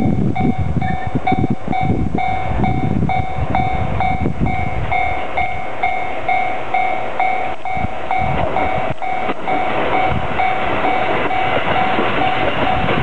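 Japanese level-crossing alarm on the Hachikō Line side of the crossing, ringing a repeated electronic ding about twice a second. Under it a train rumbles past the crossing.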